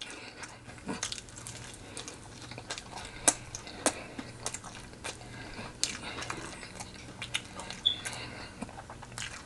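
Close-miked chewing and biting of fried chicken: irregular sharp clicks and mouth smacks, over a faint steady low hum.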